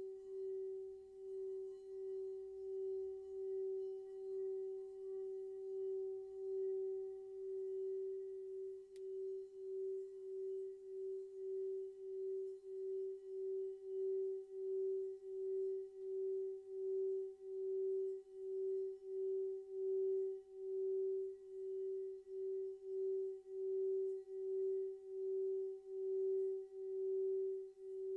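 Handheld metal singing bowl being sung by circling a mallet around its rim: one steady ringing tone with fainter overtones above it, wavering in loudness about once or twice a second and growing louder around halfway through.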